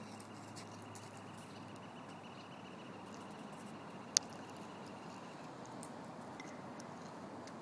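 Steady outdoor background noise with faint scattered ticks and one sharp click about four seconds in. A faint, steady high whine stops about two-thirds of the way through.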